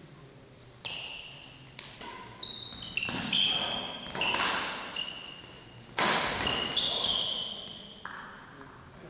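Badminton doubles rally: rackets striking the shuttlecock about ten times over some seven seconds, the loudest hit about six seconds in, with short high squeaks of sports shoes on the hall floor between the shots. The hits ring on in the hall's echo.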